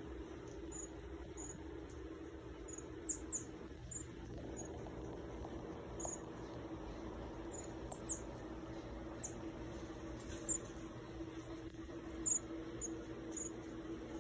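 Geoffroy's marmoset giving short, high-pitched chirps, some sliding down in pitch, scattered about once a second, over a steady low hum.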